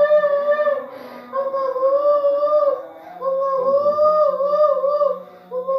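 A person wailing in long, high, wavering cries, four drawn-out cries split by short breaths.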